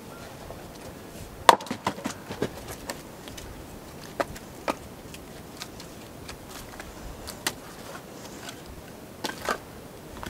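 An axe strikes a log on a wooden chopping block and splits it about one and a half seconds in, with the split pieces clattering down right after. Scattered wooden knocks of split firewood being handled follow, with a double knock near the end.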